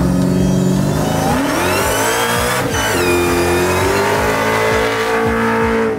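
Dodge Challenger V8 at high revs during a burnout. The engine pitch holds, climbs from about a second and a half in, drops abruptly near the three-second mark, then holds high again, over a steady hiss from the tyres.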